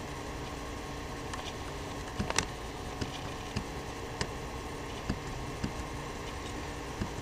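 Computer mouse clicking about eight times at irregular intervals over a steady low hum with faint steady tones.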